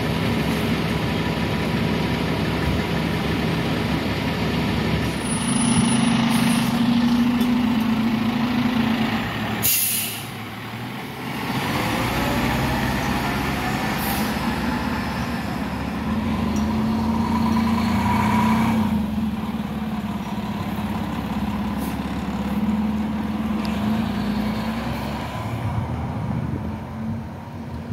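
Fire trucks' diesel engines running steadily, with a short hiss of air brakes about ten seconds in.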